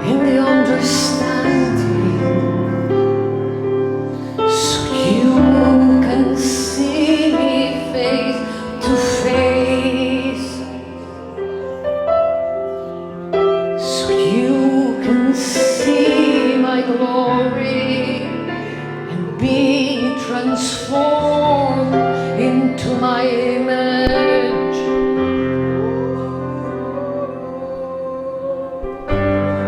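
Slow worship music: a woman singing a wavering melody over sustained chords.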